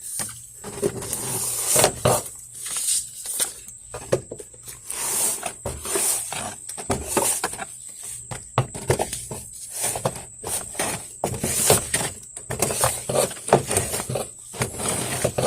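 Hand gutter tool scraping and scooping wet leaf debris along a gutter, in irregular scrapes and rustles.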